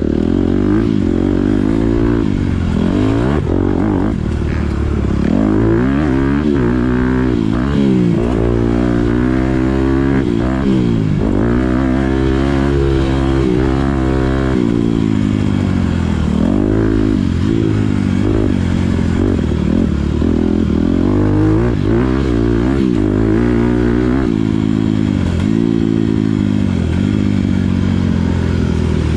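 Honda CRF250 motocross bike's four-stroke single-cylinder engine under hard riding, its revs climbing and dropping back over and over with throttle and gear changes.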